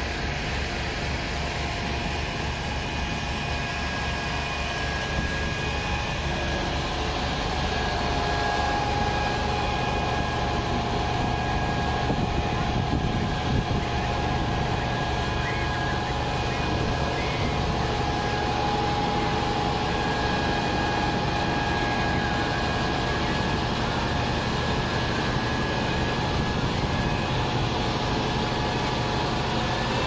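A fire engine's motor running steadily at constant speed to drive its pump for the charged hoses. A low rumble sits underneath, and a few steady tones hold above it.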